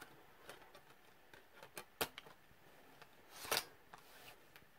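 Small plastic clicks as a CD is pressed onto the spindle of a laptop's optical drive tray. About three and a half seconds in comes a short, louder slide and click as the tray is pushed shut.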